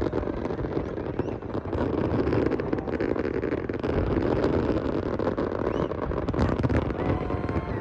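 Fireworks going off continuously: a dense run of bangs and crackles over a steady low rumble.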